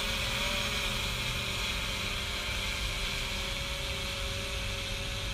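DJI Mavic Air quadcopter's propellers and motors running in flight, a steady whine whose pitch wavers slightly, over a hiss.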